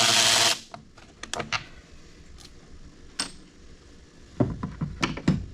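A power drill runs briefly and stops about half a second in, then scattered light clicks and clinks of screws and parts being handled, with a few louder knocks near the end, as the blower motor is taken out.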